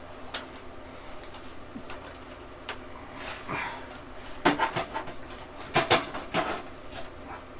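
Plastic clicks and knocks of the old power supply's cable connectors being unplugged and its wires pulled about inside a desktop PC case, a few scattered clicks at first and a quick run of sharper ones about four to six and a half seconds in.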